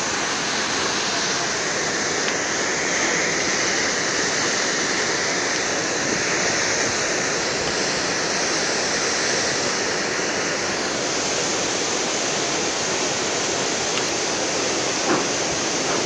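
Flash-flood torrent of muddy water rushing, a steady, unbroken wash of water noise.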